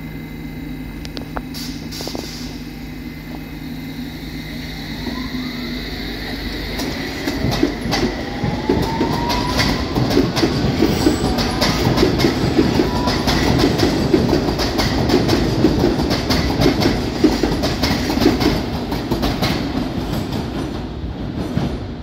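London Underground S Stock train (Bombardier Movia) pulling away: its traction motors whine, rising in pitch as it gathers speed, with rapid wheel clicks over the rails. It grows louder, then fades near the end.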